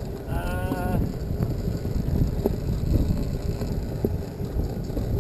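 Wind buffeting the microphone, a steady low rumble, with a brief call from a voice about half a second in.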